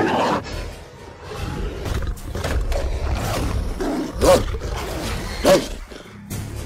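Dubbed creature growls and roars for fighting werewolves, made from mixed animal, monster and human-voiced sounds, with two short, loud roars about four and five and a half seconds in over a low rumble.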